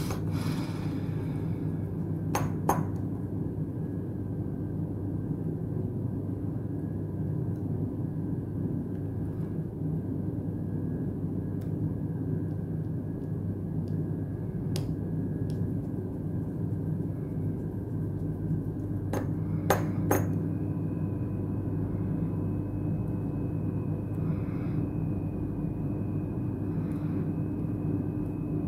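Small sharp metallic clicks of tiny phone screws and a thin Phillips screwdriver clinking against the phone and the work surface. There are a pair of clicks, then three close together past the middle, over a steady low background hum.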